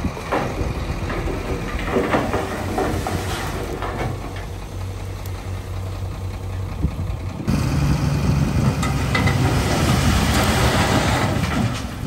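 Dump truck's diesel engine running as the raised bed tips out a load of rocks and dirt, the rocks tumbling and rattling onto the ground. The sound gets louder about halfway through.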